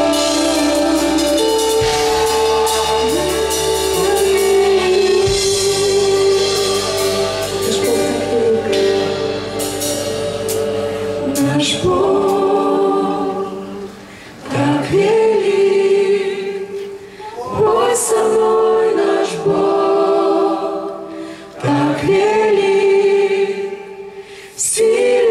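Worship song sung by a woman leading with a group of backing singers, first over a sustained keyboard accompaniment. About halfway through, the accompaniment drops out and the voices carry on nearly unaccompanied in phrases with short breaks between them.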